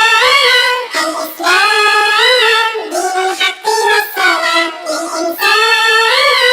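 A child's high voice singing an Islamic nasheed in held, melismatic phrases with short breaks between them, with no percussion.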